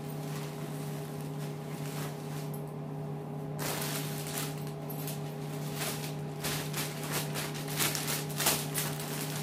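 Soft rustling of saree cloth being folded, then from about three and a half seconds in, a clear plastic packet crackles and crinkles as the folded saree is slid back into it.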